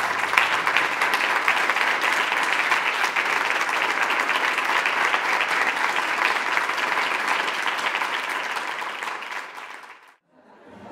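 A large audience applauding, a dense patter of many hands clapping that tapers off and cuts out near the end.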